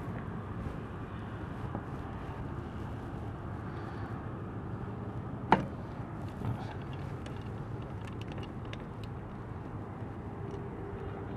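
Steady outdoor background rumble, with a single sharp click about five and a half seconds in and a softer knock about a second later.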